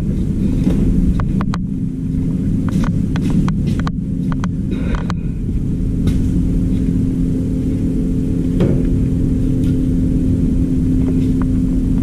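A machine running steadily with a low drone and a few held hum tones, with scattered short clicks and knocks over it.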